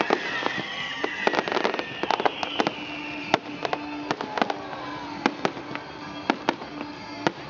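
Fireworks display: a rapid, irregular series of sharp bangs and crackles as shells burst one after another, with falling whistling tones over the first three seconds.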